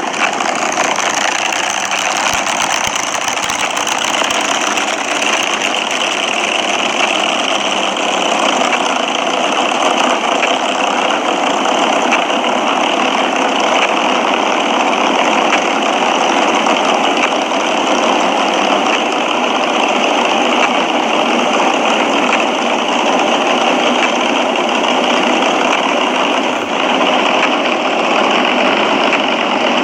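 Front-engine dragster engines idling steadily and loudly.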